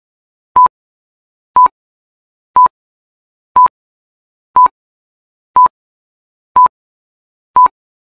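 Electronic countdown-timer beeps: short beeps at one steady pitch, one each second, eight in all, with silence between them. They tick off the seconds of a quiz timer counting down to the answer.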